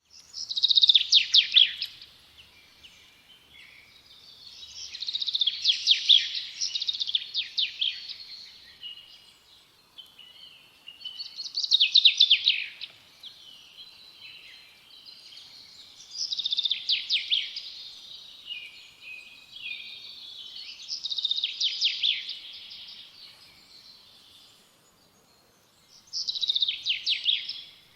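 A songbird singing: six loud, high-pitched phrases of rapid notes, one every four to five seconds, with quieter twittering between them.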